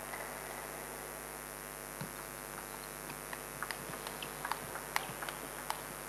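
Table tennis ball clicking off bats and table, an irregular run of short sharp clicks that gets busier in the second half. A steady electrical hum runs underneath.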